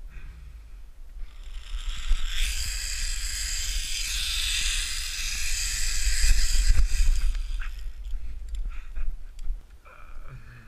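Zip-wire trolley pulley running along the steel cable, a rising whir with wind on the microphone, starting about a second in. It cuts off about seven and a half seconds in as the ride ends, followed by a few light clicks.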